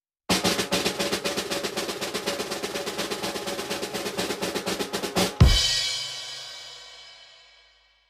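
Snare drum roll sound effect: a fast, even roll lasting about five seconds, ending in one loud hit of bass drum and crashing cymbal whose ring fades away over the next two seconds.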